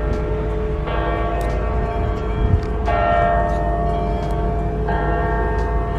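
Church bells ringing, a new bell struck about every two seconds, three times, each at a different pitch and ringing on over the last, over a steady low rumble.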